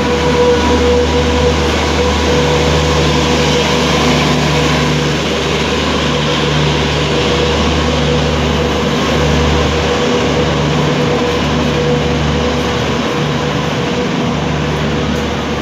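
An electric-hauled Rajdhani Express's LHB coaches roll past along the platform. There is a steady rumble of wheels on rail with a low hum, and a steady high tone from the passing WAP-5 locomotive, loudest at first and fading over the first ten seconds or so.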